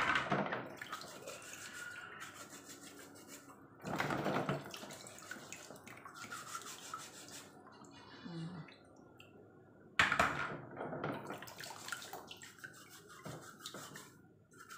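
Mussels being scrubbed with a scouring pad in a plastic basin of water: rubbing and sloshing, with dripping as shells are lifted out. Louder splashes come at the start and again about four and ten seconds in.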